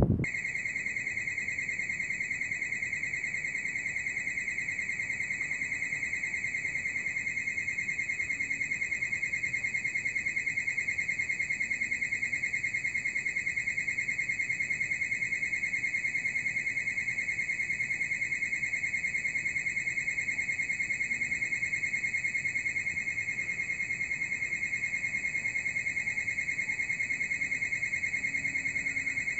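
Steady, high-pitched electronic alarm tone with a fast flutter. It switches on abruptly and sounds without a break.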